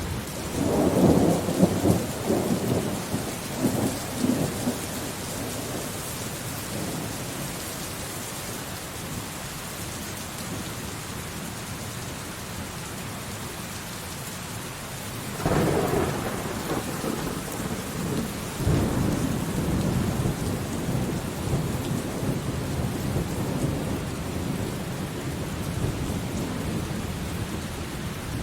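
Steady rain with thunder. Rumbles come in the first few seconds, then it settles to rain alone. About halfway through a sudden thunderclap breaks in, and a few seconds later another follows, rumbling on.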